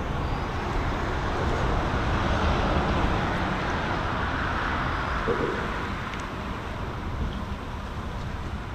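Road traffic on the bridge overhead, a steady rumbling hiss that swells a little over the first few seconds and then eases off as vehicles pass.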